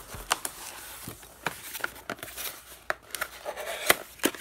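Hands rummaging in a cardboard shipping box among packing pieces and lifting out a small cardboard box: rustling and scraping with scattered sharp clicks and taps, the loudest near the end.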